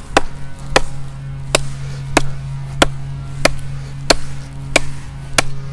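Harbor Freight Pittsburgh hatchet chopping into the trunk of a downed conifer: nine sharp strikes at an even pace of about three every two seconds. A steady low hum runs underneath.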